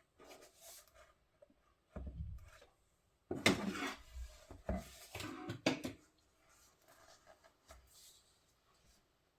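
Paintbrush scrubbing and rubbing on watercolour paper in several short strokes, with a low knock about two seconds in.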